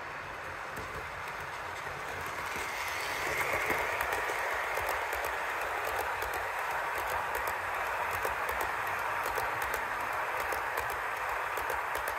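Model train of tank wagons rolling over sectional track laid on a wooden floor: a steady rattling rumble from the wheels that grows louder from about two seconds in as the wagons pass close by, with quick clicks at the rail joints throughout.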